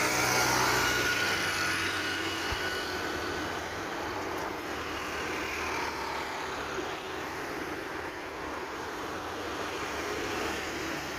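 Rolls-Royce Trent 7000 turbofans of an Airbus A330-900neo running as the airliner rolls past on the ground. A thin, high fan whine sits over the steady jet noise for the first few seconds. The sound is loudest at the start, then eases slightly and holds steady.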